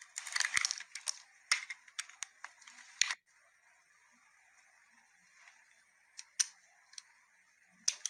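Blade carving into a bar of soap: a run of crisp scraping, crackling cuts, ending in a sharp snap about three seconds in, followed by a few soft separate clicks.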